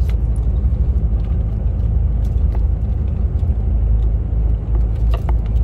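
Steady low engine and road rumble inside a moving truck's cab, with a few faint clicks near the end.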